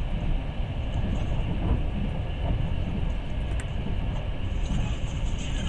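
Passenger train under way, heard from inside the carriage: a steady low rumble of wheels on the rails.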